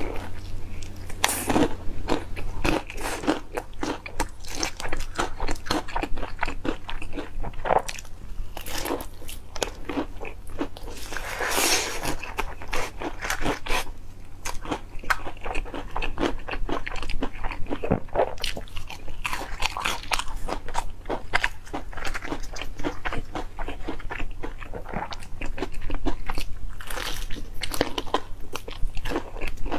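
Close-miked crunching bites and chewing of crispy fried chicken coated in cheese sauce, picked up by a lapel microphone near the mouth: dense, irregular crackling crunches throughout.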